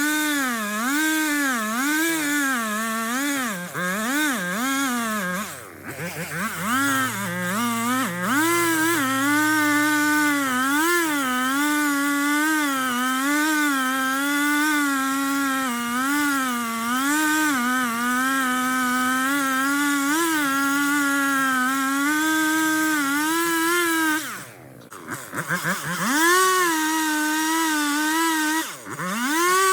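Two-stroke chainsaw cutting at high throttle through a big trunk, its pitch sagging and recovering over and over as the chain bogs under load. Three times the throttle drops off briefly and the engine revs back up.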